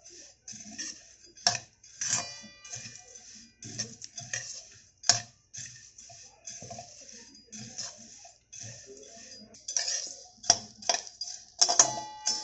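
A flat metal spatula stirs and scrapes whole spices being dry-roasted in a hammered stainless-steel kadhai: irregular scrapes, rustles and clinks. The pan rings briefly after a couple of sharper knocks, about two seconds in and near the end.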